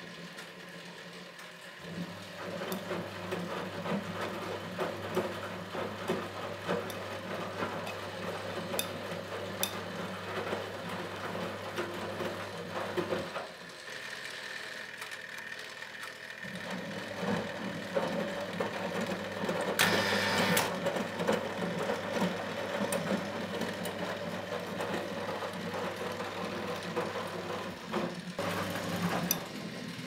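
1964 Miele Automatic 416 washing machine tumbling a wet load of whites. The drum motor hums steadily under the clatter of laundry as the drum turns, pauses for about three seconds, then turns again, with a louder burst of clatter partway through the second run.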